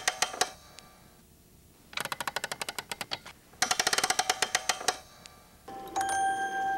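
Cylinder music box mechanism clicking rapidly, about a dozen clicks a second, in three bursts with pauses between. Near the end the box starts playing clear, ringing, bell-like notes.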